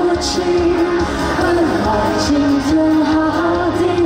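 Live pop-rock band music: a singer carries a held, wavering melody over the band, with drum or cymbal hits about once a second.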